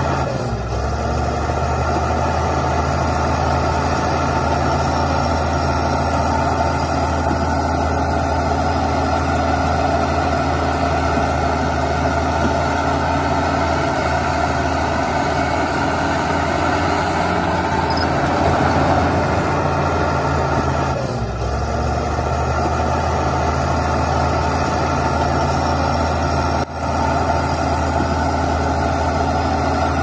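Heavy diesel earthmoving machinery running steadily. The engine note shifts about two-thirds of the way through, and there is a brief drop in level near the end.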